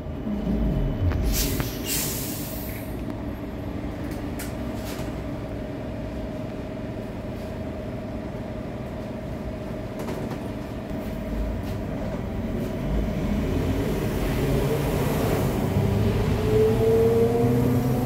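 Inside a VMZ-5298.01 Avangard trolleybus: the traction motor's whine falls as it brakes to a halt, with a hiss of air about a second and a half in. A steady hum follows while it stands, then the whine rises again near the end as it pulls away.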